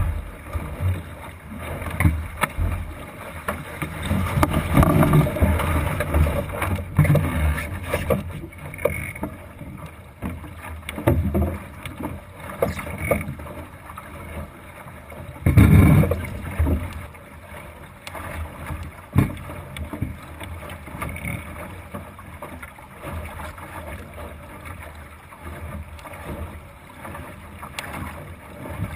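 Water rushing and slapping along the hull of a Thistle sailing dinghy under sail, mixed with wind buffeting the microphone, coming in uneven surges with one louder surge about halfway through.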